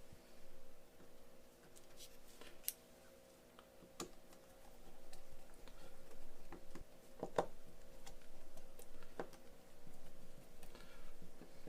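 Scattered light clicks and taps of small tools handling an opened Nintendo Switch, a cluster of them a little past the middle, over a steady electrical hum.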